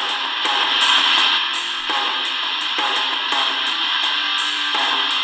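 Tecsun DR-920C portable radio playing music with a steady beat through its small built-in speaker, received on FM 97.7 from a low-power FM transmitter; the sound has no deep bass.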